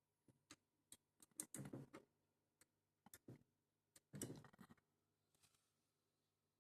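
Faint scattered clicks and two brief rustles over a low steady hum, otherwise near silence.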